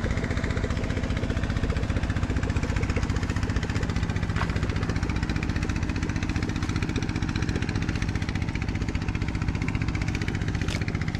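An engine running steadily. Two short sharp clicks are heard, one about four seconds in and one near the end.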